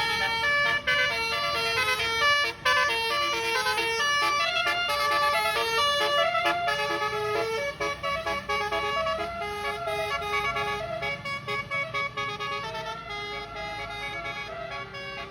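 Bus's multi-tone telolet musical horn (Basuri type) playing a quick tune of shifting notes, growing gradually fainter over the second half.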